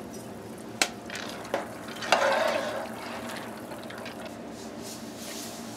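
Metal spoon stirring elbow macaroni in a pot of boiling water: two sharp clicks, then a swishing stir about two seconds in, over the steady bubbling of the water.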